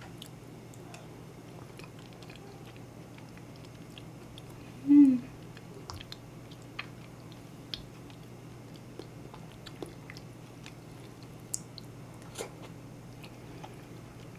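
Close-miked chewing and wet mouth sounds of someone eating a thick corn-and-bean porridge, with scattered small clicks and smacks. A short hum of pleasure from the eater about five seconds in is the loudest sound.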